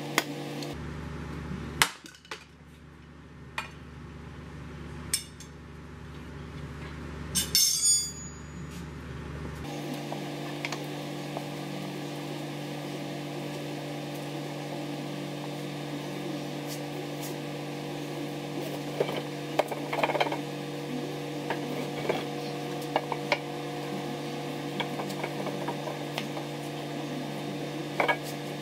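Steel pry bars clanking and clinking against the engine and gearbox casing as the bell housing is levered, with sharp metallic knocks, the loudest about a quarter of the way in and fainter ones later, over a steady hum. The gearbox won't part from the engine because a retaining nut was left on.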